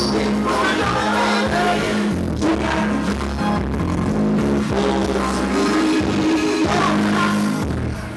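Live music played loud through a PA, with a heavy bass line and a man singing into a handheld microphone over it.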